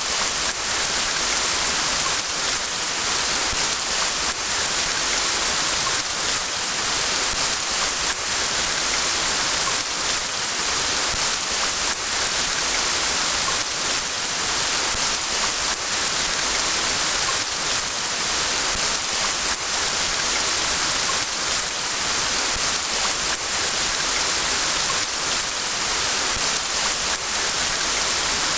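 Steady rain: a dense, even hiss with faint taps of individual drops.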